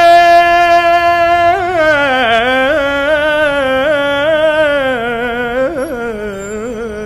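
A man singing solo in Arabic, holding one long steady note, then about a second and a half in gliding down into a wavering, ornamented melisma on a single drawn-out syllable.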